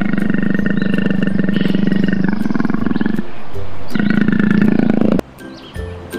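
Big cat roaring for a leopard: one long rasping roar lasting about three seconds, then a shorter roar about a second later.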